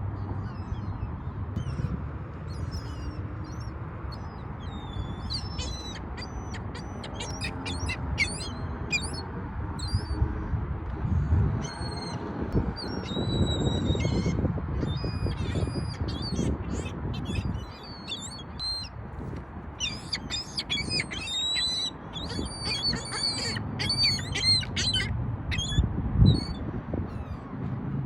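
A group of birds calling in quick, high-pitched chirps and squawks, busiest in bunches through the middle and latter part, over a steady low rumble.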